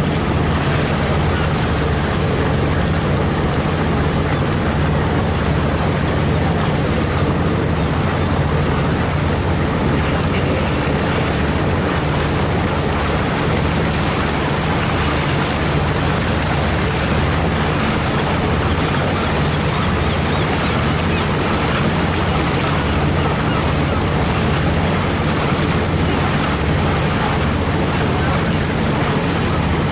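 Boat engine running steadily, with a constant rush of water along the hull and wind on the microphone.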